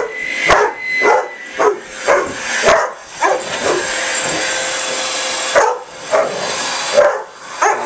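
Dogs barking repeatedly and sharply at a running vacuum cleaner, whose steady motor whine carries on underneath. The barking stops for about two and a half seconds in the middle, leaving the vacuum on its own, then starts again.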